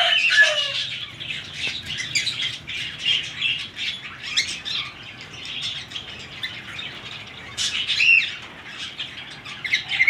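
Flock of small parrots chirping and squawking, with many short calls packed close together and a louder burst of calls about eight seconds in.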